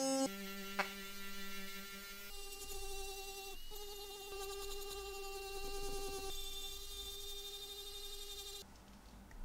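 Foot-pedal-controlled electric rotary tool whining steadily as a felt polishing bob fine-polishes a bare watch case. Its pitch shifts a couple of times, and the sound cuts off near the end.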